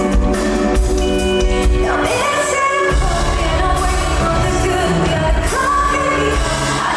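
Live pop song played over a concert sound system: a band with a woman singing lead. The bass drops out briefly about two seconds in, then comes back.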